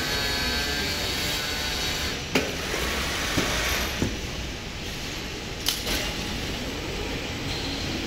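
Machinery of an automatic pallet packaging and strapping line running with a steady hum and whine that fades out about two seconds in, then four sharp clunks spread over the next few seconds.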